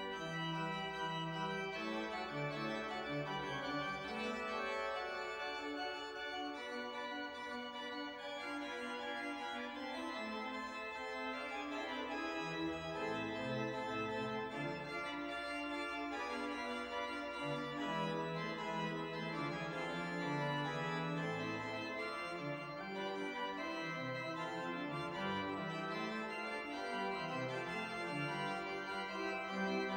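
Pipe organ playing a dense, many-voiced passage, with a bass line moving under steadily sounding upper parts.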